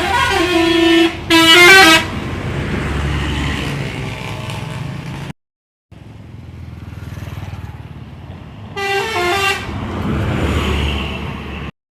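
Indonesian 'telolet' musical bus horns playing quick stepping multi-tone melodies, with bus engines rumbling past. The horn is loudest in a short burst about a second and a half in and sounds again around nine seconds in.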